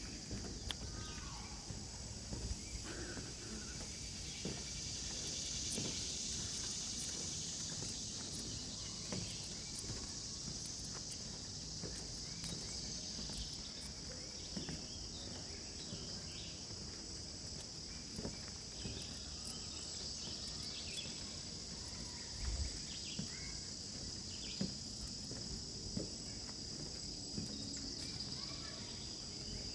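Steady, high-pitched insect chorus of crickets and similar summer insects, with scattered short chirps and a few soft footsteps on the trail.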